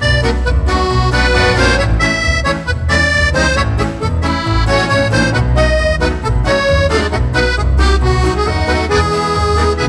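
Instrumental music with a steady bass beat and many quick melody notes.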